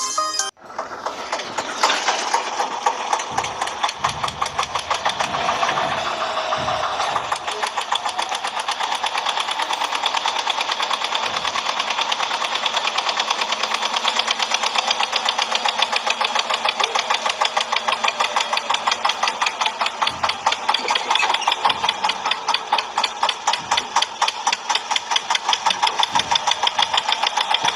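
Toy tractor's electronic engine sound: a thin, chugging engine noise in fast, even pulses with no deep bass, starting about half a second in and running on steadily.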